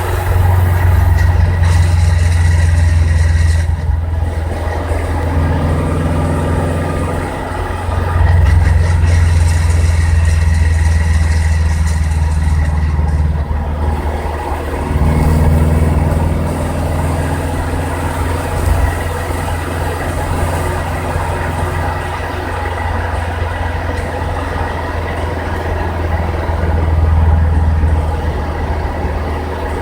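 Scion FR-S being driven, its engine and drivetrain making a loud, low drone that dips and shifts several times as speed changes. The owner hears a weird grinding noise from it when decelerating, which began after an Exedy stage 2 clutch was installed.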